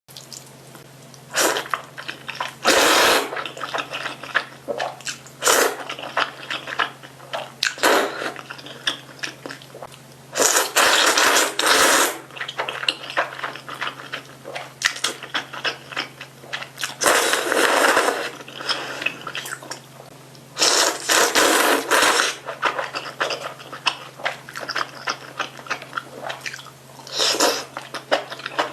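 Close-miked eating of spicy fire-chicken instant noodles: loud noisy slurps of half a second to a second and a half, about eight of them, with wet chewing clicks between. A steady low hum runs underneath.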